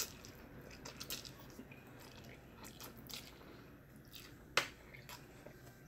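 A person slurping and chewing instant noodles, faint wet mouth sounds with a few small clicks and one sharper click about four and a half seconds in.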